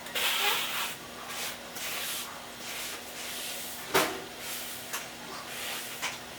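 Handling noises: a run of short brushing, scraping strokes, with a sharp knock about four seconds in and lighter clicks after it.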